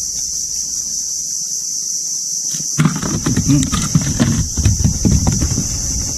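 Steady high-pitched insect buzz throughout. From about three seconds in, irregular knocks and thumps from a small caught fish being handled and unhooked on a kayak for release.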